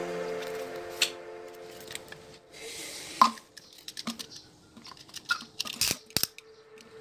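Light clicks and taps as a plastic bottle and a utility knife are handled, with one sharp click about three seconds in and a run of small ticks near the end. Background music fades out over the first two seconds.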